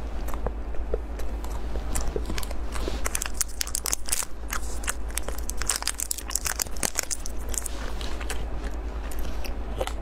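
A small chocolate bar's crinkly plastic wrapper being torn open and peeled off by hand: dense crackling and crinkling, busiest in the middle stretch, over a steady low hum.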